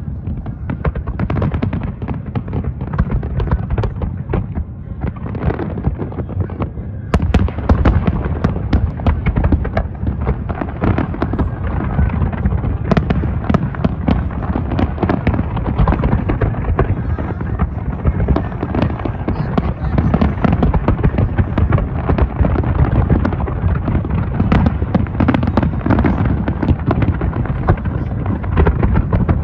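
Large fireworks display: aerial shells bursting in a continuous barrage of overlapping bangs and booms. The barrage grows louder and denser about seven seconds in.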